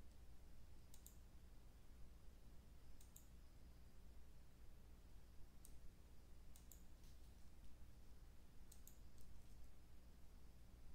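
Faint computer mouse clicks, mostly in quick press-and-release pairs, every second or two as slide animations are stepped through, over a low steady hum.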